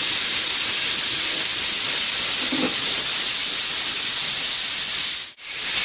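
Compressed air hissing out of a Husky air compressor's tank as it is bled down from about 75 psi. A loud, steady hiss that cuts out briefly near the end.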